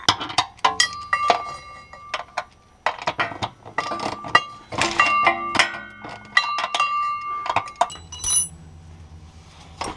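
Metal hand tools (sockets and wrenches) clinking and clattering against each other and the car's metal: a string of sharp clinks, several ringing briefly. A low steady hum comes in near the end.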